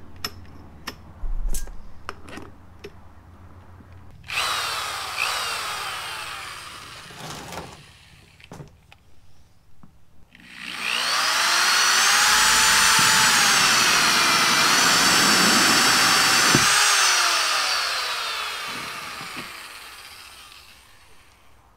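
Clicks as a power drill is readied, a short run of the drill about four seconds in, then a longer, louder run from about eleven seconds in as it cuts a hole through the wall of a plastic storage tub. The motor tone holds steady, then fades toward the end.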